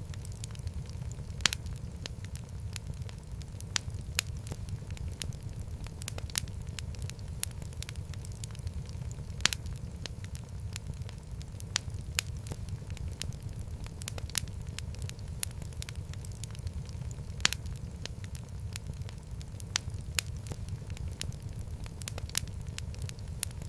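Wood fire in a fireplace burning with a steady low rumble and irregular crackles, a few sharper pops standing out.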